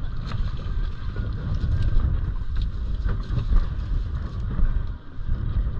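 Wind buffeting the microphone: a steady low rumble, with a few faint clicks from handling on deck.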